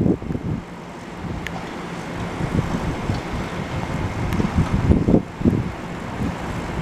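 Wind gusting against the microphone in irregular low buffets, the loudest thing here. Under it are the steady hiss of rain and the low, even hum of a standing NJ Transit bi-level commuter train.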